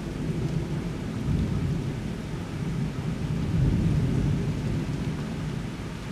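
Thunder rumbling low and long, swelling to its loudest about four seconds in and then easing off, over steady rain.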